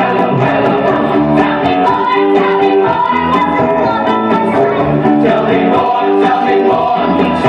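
Music: a rock and roll song with guitar, a steady beat and singing.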